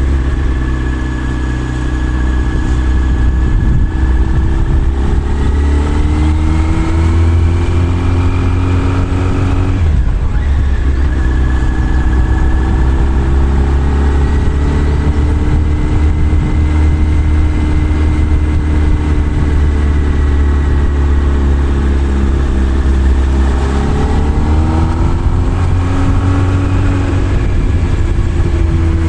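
Motorcycle engine running under way on a winding climb, its pitch rising as it pulls, dropping out briefly about a third of the way in, then holding fairly steady before rising again near the end. A strong low rumble runs underneath.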